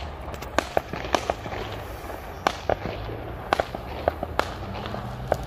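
Fireworks going off: an irregular string of sharp cracks and pops, about a dozen in five seconds, over a steady low hum.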